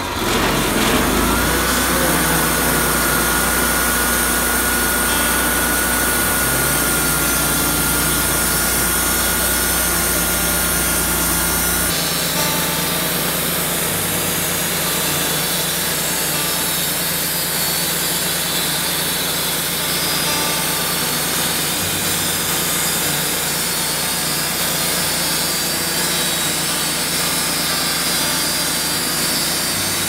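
Wood-Mizer LT35 portable band sawmill running: its engine comes up to speed at the start and the band blade cuts through a reclaimed chestnut log with a steady high whine. The sound changes abruptly about twelve seconds in.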